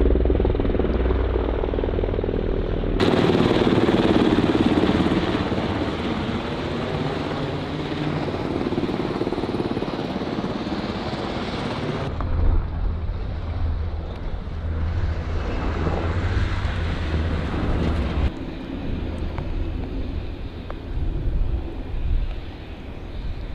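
UH-60 Black Hawk helicopters' rotors and twin turboshaft engines running continuously. The noise jumps abruptly in level and character about 3, 12 and 18 seconds in, and is loudest a few seconds in.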